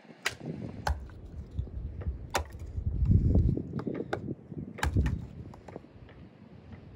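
Hatchet splitting firewood on a chopping block: four sharp wooden chops in the first five seconds, over a low rumble that is loudest about three seconds in.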